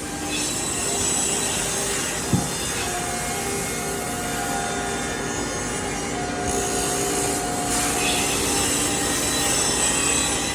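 CNC router running and cutting wood: a steady scraping cut under motor whines that hold and then step to new pitches, with one sharp knock a couple of seconds in.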